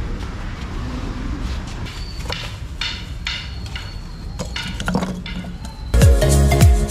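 Low steady outdoor background noise with a few faint clinks and knocks. Upbeat background music with a beat starts suddenly near the end.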